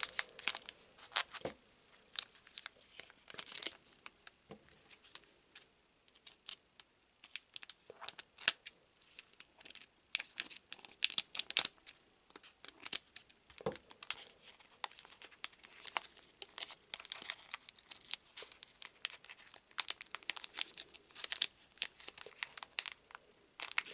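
A trading-card booster pack wrapper crinkling and tearing as it is worked open by hand, in irregular crackles with pauses. The pack is sticking at the edge and is hard to open.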